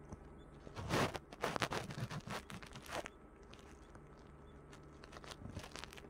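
Rustling and crinkling handling noise, a run of crackles lasting about two seconds, then a shorter patch near the end. No chick peeping.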